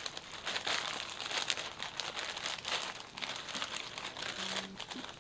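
Packaging crinkling and rustling as it is handled and opened, an irregular run of crackles.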